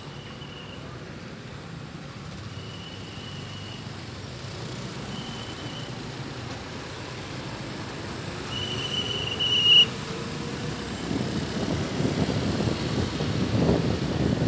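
Vehicle noise on the move along a road, a steady rumble that builds and gets louder in the last few seconds, with wind buffeting the microphone. Four short high-pitched tones sound in the first ten seconds.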